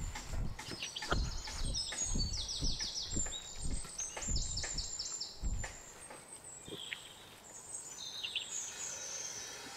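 Hands squeezing and kneading minced meat with chopped vegetables in a metal bowl, soft wet strokes about two or three a second, stopping about six seconds in. Small birds chirp and trill over it.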